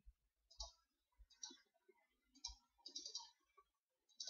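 Faint computer mouse clicks, about five of them spaced roughly a second apart, with two or three in quick succession about three seconds in.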